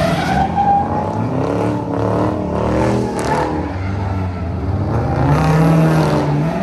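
Car engine revving hard, its pitch rising and falling over and over as the car spins donuts in tyre smoke.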